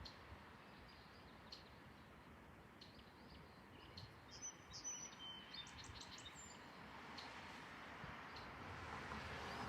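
Faint outdoor quiet with a few small bird chirps, clustered around the middle.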